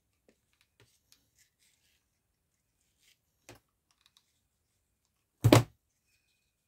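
Faint clicks and rustles of hands working satin ribbon and a hot glue gun, then one loud short knock about five and a half seconds in, like a hard object set down on the desk.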